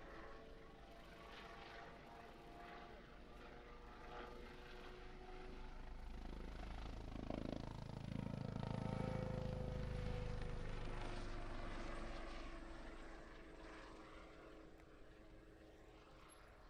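Kawasaki OH-1 observation helicopter flying past: the rotor and engine sound swells to its loudest about halfway through, then fades away.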